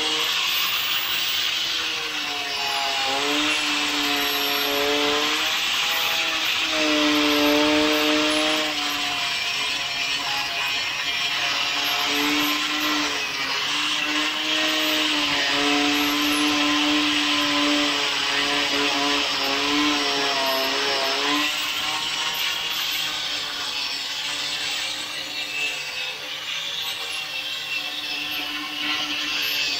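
Metabo angle grinder running continuously with an abrasive disc, grinding body filler off a car's steel sill panel. The motor's hum wavers and dips in pitch as the disc is pressed into the work, under a steady grinding hiss.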